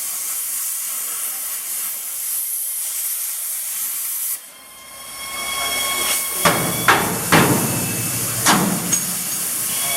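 Air plasma cutter hissing as it cuts heavy square steel tube, cutting out suddenly about four seconds in. The hiss then builds again, with a few sharp metallic knocks.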